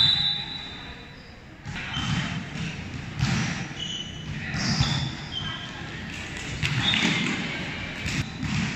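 Indoor volleyball rally: the ball is struck and lands with scattered thuds, shoes squeak briefly on the court floor several times, and players' voices call out, all echoing in a large hall.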